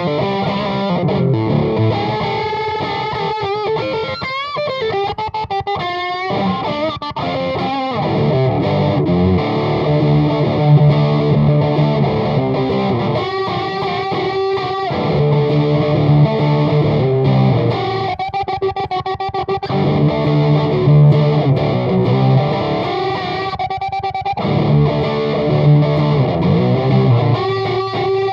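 Electric guitar through a Bogner Burnley distortion pedal into an Ampeg GVT5H amp on low power and a Jet City 2x12 cabinet with Eminence speakers, playing a rock jam. Heavy distorted chords alternate with lead fills that bend and shake in pitch, with fills about 3 to 7 seconds in and again around 13, 18 and 23 seconds.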